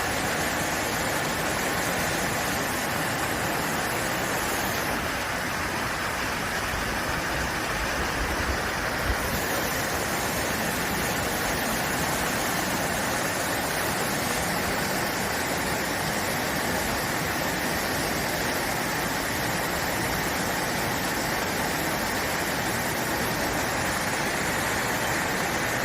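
Steady rush of a fast-flowing mountain stream in spate after heavy rain, with one brief knock about nine seconds in.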